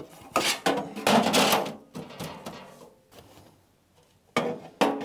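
Stiff plastic insulating sheets being handled and slid into a metal battery case, scraping and knocking against its walls. A run of scraping and clattering comes in the first second and a half, and another clatter comes near the end.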